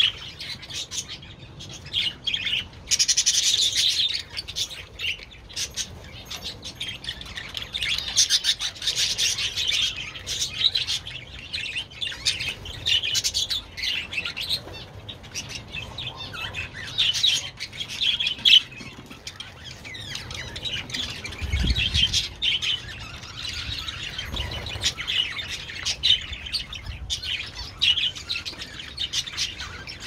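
A flock of budgerigars chirping and chattering continuously, many birds calling over one another, with occasional wing flaps.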